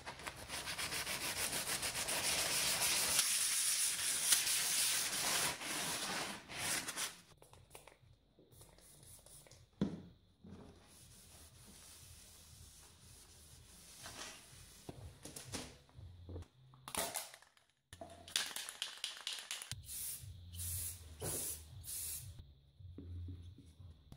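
Sandpaper rubbed by hand over a perforated metal speaker grill mesh in quick back-and-forth strokes for about the first seven seconds, then quieter, scattered rubbing and handling noises.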